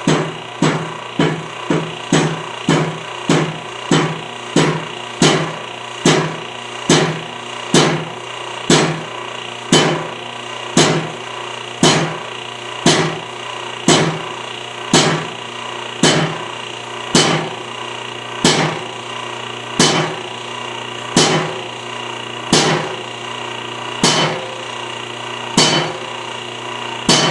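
Hydraulic shop press pressing a bushing into an excavator link. It knocks sharply in a steady rhythm, about two strokes a second at first, slowing to about one a second, over a steady hum.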